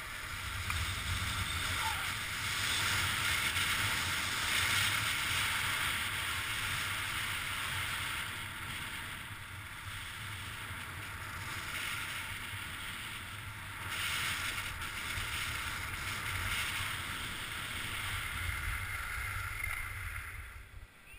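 Steady hissing scrape of skis or a board sliding fast over groomed snow, mixed with wind rumbling on the camera's microphone. The level swells and eases with the turns, then drops away near the end as the rider slows.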